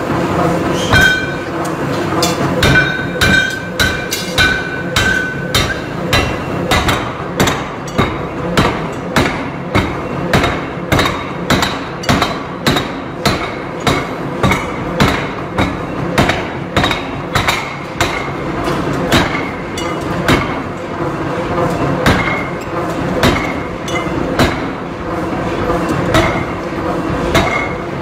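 Large power forging hammer pounding a red-hot metal ring on its anvil in a steady run of blows, about three every two seconds, over a steady machinery hum. The hot ring rings with a metallic tone for the first few seconds.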